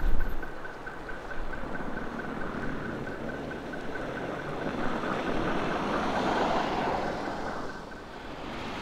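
A car passing slowly over a snow-covered street with a steady hiss of tyres, its noise swelling toward the end before fading. Over it, a pedestrian crossing signal ticks rapidly and evenly while its light is green, stopping near the end, and a gust of wind hits the microphone at the start.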